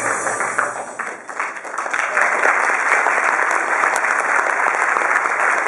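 A band of music ends right at the start. After a brief dip about a second in, audience applause builds and keeps up steadily.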